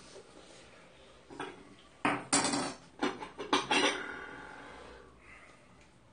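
Metal chopsticks and ceramic bowls clinking on a dining table: a quick cluster of clinks and clacks about two seconds in, the last one ringing briefly as it fades.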